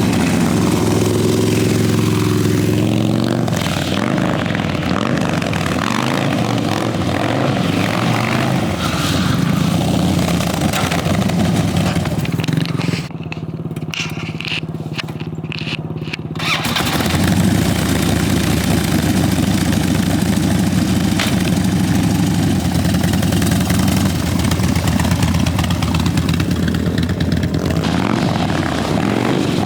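Harley-Davidson V-twin motorcycle engine running and revving, its pitch rising and falling. About halfway through, the sound thins out and stutters for a few seconds before the full engine note returns.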